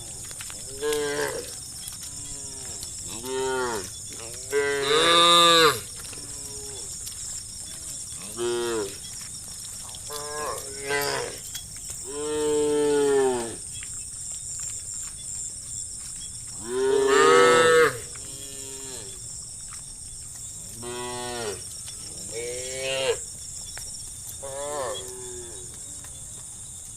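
Several cows mooing, about ten calls spread irregularly, some short and some drawn out, two of them much louder than the rest, over a steady high-pitched hiss.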